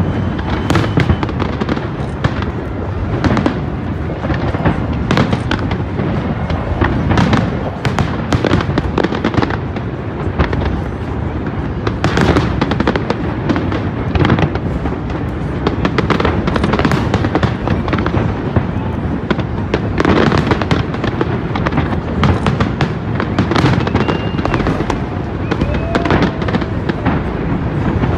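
Aerial fireworks display: shells bursting in quick succession, a dense run of sharp bangs with no pause.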